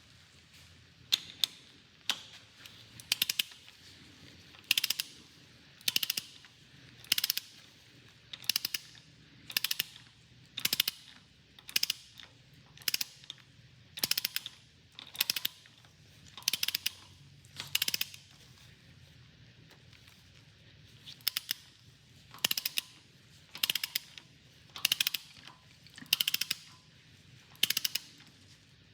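A socket ratchet worked in short strokes, each stroke a quick run of clicks, about one a second, with a pause of a few seconds about two-thirds of the way through.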